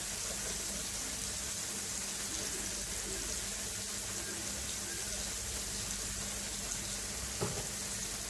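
Chopped tomatoes and onions sizzling in oil in a frying pan: a steady, even hiss.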